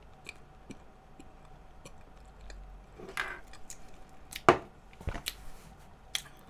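Eating and handling sounds at a table: soft mouth noises, a brief rustle about three seconds in, then a single sharp knock halfway through, the loudest sound, followed by a few lighter clicks.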